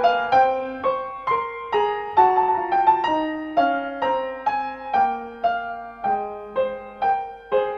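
Solo piano music: evenly paced notes, a little over two a second, each fading before the next.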